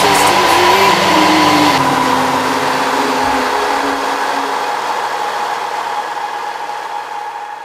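Vought F4U Corsair's Pratt & Whitney R-2800 radial engine running under power, heard from inside the cockpit with airflow noise. The engine tones shift in pitch during the first couple of seconds, then the sound fades steadily toward the end.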